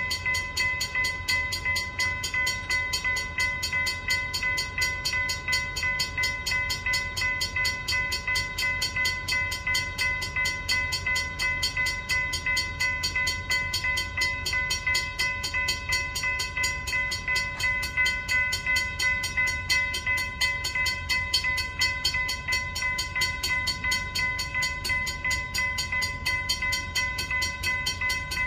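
Railroad grade-crossing bell ringing at a quick, even rate, unchanged throughout, over a steady low rumble.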